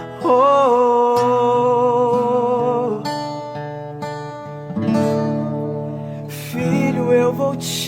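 Christian worship song music led by acoustic guitar, with a long held note starting just after the beginning.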